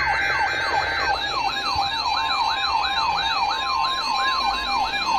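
Electronic siren yelping, its pitch sweeping rapidly up and down about two to three times a second. A steady high tone joins it about halfway through.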